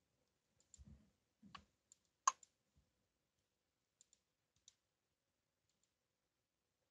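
A few faint computer mouse clicks in near silence, the loudest a little over two seconds in, then only a few tiny ticks.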